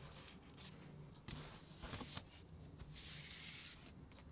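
Faint rubbing and scraping of a cardboard gatefold LP sleeve being handled and folded shut, a few short scuffs followed by a longer brushing stroke near the end.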